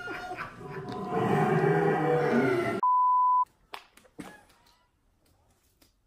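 A busy mix of voices and noise from the compilation clip cuts off about halfway through. A steady single-tone beep of just over half a second follows, like a censor bleep. After it there is near quiet with a few faint clicks.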